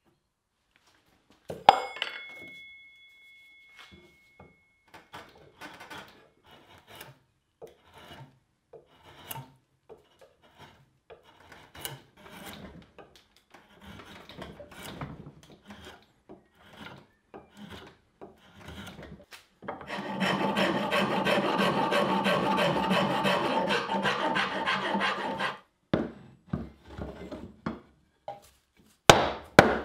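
Hand tools working a wooden tool handle: a sharp metal knock with a brief ring near the start, then a long run of short scraping strokes of a drawknife shaving the wood, then about five seconds of steady scraping like a rasp, and a sharp knock near the end.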